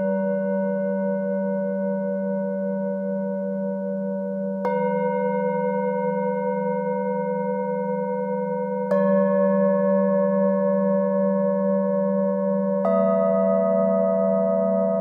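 Metal singing bowls struck with a mallet, three strikes about four seconds apart. Each new bowl rings on over the others, above a steady low hum with a slow wavering beat.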